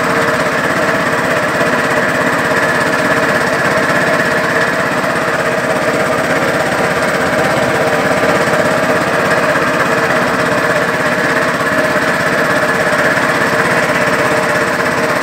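Small single-cylinder inboard engine of a katinting outrigger boat running steadily, loud with a fast, even beat.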